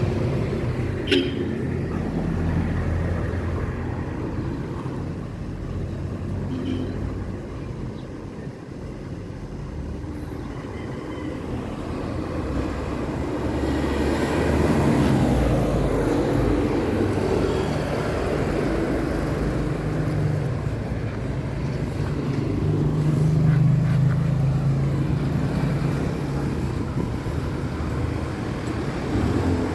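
Low rumble of motor vehicles, swelling and fading, with a sharp click about a second in.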